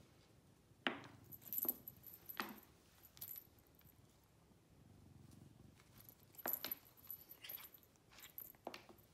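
Light metallic jingling and clinking in several short bursts, a few in the first three seconds and more after about six seconds.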